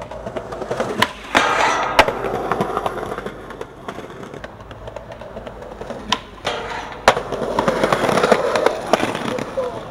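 Skateboard wheels rolling over concrete, with four sharp clacks of the board hitting the ground: two about a second apart near the start and two more about a second apart past the middle.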